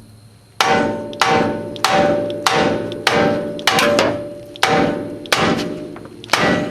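Hammer striking the front ball joint of a 1997 Honda Civic, about ten blows at roughly one and a half a second, each ringing like struck steel. The blows are meant to shock the ball joint's taper loose from the steering knuckle.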